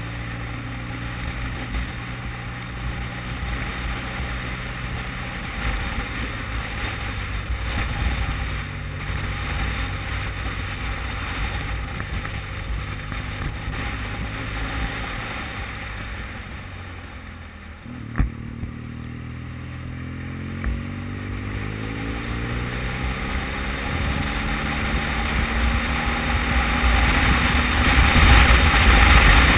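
Motorcycle engine running at a steady cruise under wind and wet-road noise. About two-thirds of the way through it eases off, there is a sharp click, and then the engine pitch climbs steadily as the bike accelerates, with the wind and road noise growing louder near the end.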